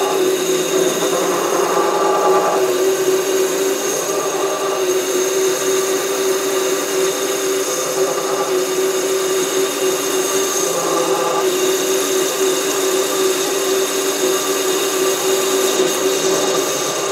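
SC2 mini lathe running at speed with a steady hum and a high whine, as a parting tool is fed by hand into a spinning 28 mm aluminium rod. A cutting noise rises and falls as the feed goes on.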